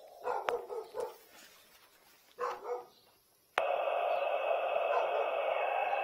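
A dog barking a few times in the first three seconds. About three and a half seconds in, a steady hiss with a thin high whine starts suddenly and keeps going.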